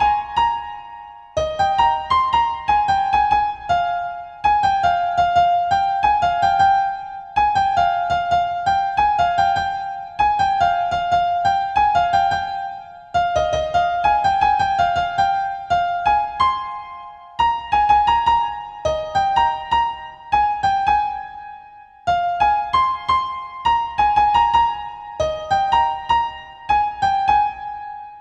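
Background music: a light electric piano melody in short, repeating phrases of quick notes.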